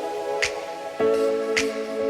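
Background music: soft held chords that change about a second in, with a light snap-like beat about once a second.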